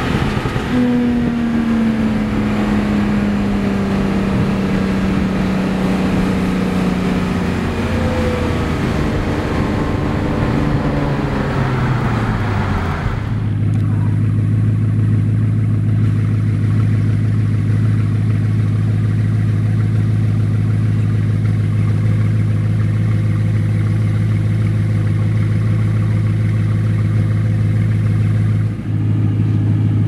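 A Porsche's engine heard from inside the cabin while driving, its pitch slowly falling as the revs come down. About 13 seconds in, a Bugatti Chiron's quad-turbo W16 takes over, idling steadily and evenly.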